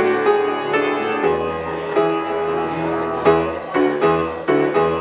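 Instrumental interlude of a Polish song: sustained chords over a steady bass line, with new notes struck every second or so and no singing.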